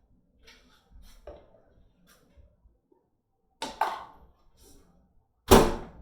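Kitchenware being handled: a few knocks and clatters as dishes and containers are set down and moved, a quick double knock near the middle and the loudest, longer clatter near the end.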